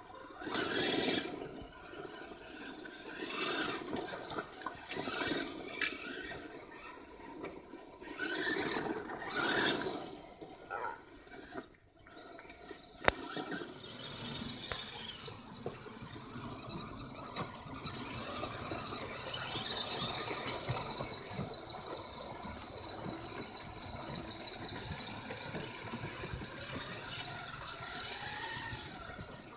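Electric motors of two 1/10-scale RC trucks, an Axial SCX10 crawler and a basher, whining as they drive, with surges of tyres working over wet gravel in the first half. After a brief drop and a sharp click about halfway, a steady high motor whine rises slightly and holds.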